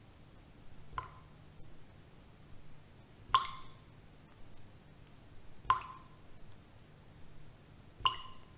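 Water dripping in a slow, even rhythm: four drops about two and a half seconds apart, each a sharp plink with a short ringing tail, over a faint steady low hum.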